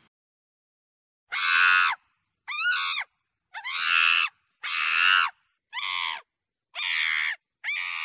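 Long-tailed macaques screaming: seven short high-pitched calls, each about half a second long and about a second apart, beginning a little over a second in. Some of the calls bend upward in pitch.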